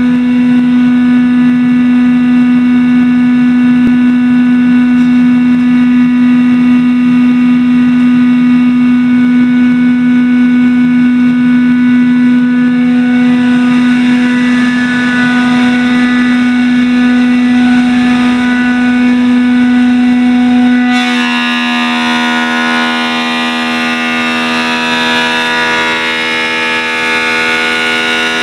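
Semi-automatic Japanese running planer running, its motor and cutterhead giving a loud, steady whine. About 21 s in, the sound changes abruptly to a buzzier, denser tone with more hiss, and it holds that way to the end.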